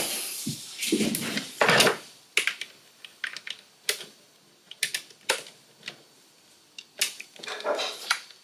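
Irregular sharp plastic clicks and taps, about a dozen, with brief rustling about a second in and again near the end, as a Maschine Mk3 controller and a replacement cable are handled and plugged in.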